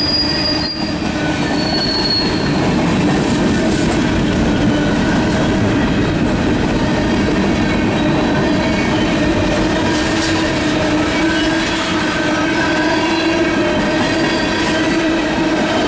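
Cars of a long mixed freight train rolling past close by, a steady, loud rumble of wheels on rail. There are sustained squealing tones from the wheels and a couple of brief high squeals in the first few seconds.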